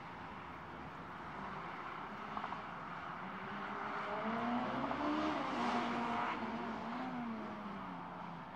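Hill-climb race car approaching and passing on the course, its engine note rising and dipping through gear changes, loudest about two-thirds of the way through, then fading.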